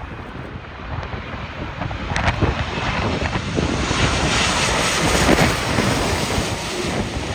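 Large jet airliner passing close on its landing approach in strong crosswinds, its engine noise swelling to a peak about five seconds in and then easing. Gusty wind buffets the microphone throughout.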